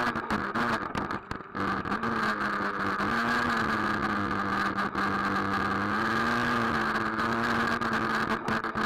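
A Traxxas Nitro Rustler's small two-stroke nitro glow engine runs close to the onboard camera. It holds a steady buzzing pitch that rises and falls slightly with the throttle, and the sound drops out briefly about a second in.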